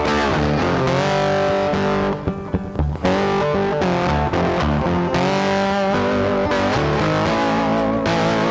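Rock music led by distorted electric guitar, with sustained, bending notes over bass. There is a brief break about two seconds in.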